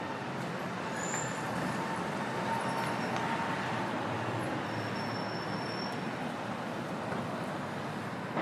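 Steady street traffic noise from passing vehicles, an even wash without a break.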